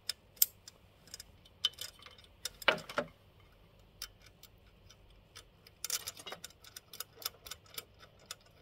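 Small metallic clicks and taps of hardware being handled as a ground-plane wire is fastened to an antenna mast fitting, with some rattle of the cable. The clicks come irregularly, a louder cluster about three seconds in and quicker, closer clicks from about six seconds on.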